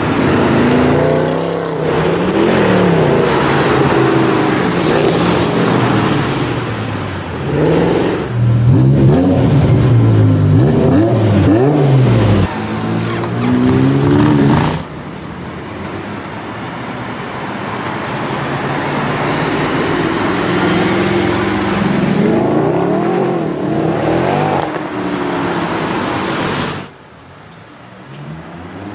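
Performance car engines revving hard and accelerating, pitch climbing and falling repeatedly through gear changes. The sound cuts abruptly to a different car about 12 and 15 seconds in, and drops much quieter near the end.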